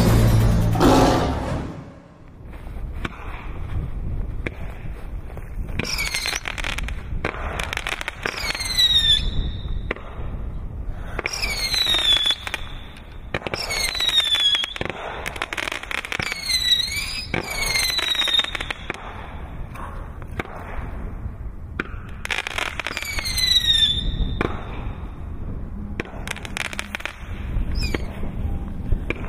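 Fireworks going off: repeated bangs and crackle, with high whistles that fall in pitch, often two or three together, every few seconds.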